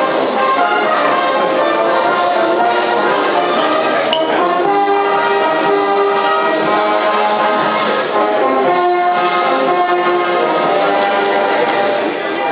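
Orchestral music with brass in the lead, playing steadily while the signing goes on.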